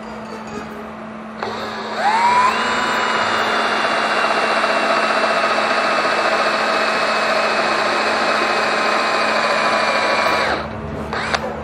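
Electric drill boring into a steel body panel: the motor starts about a second and a half in, its whine rises to a steady pitch, runs evenly for about nine seconds, then stops.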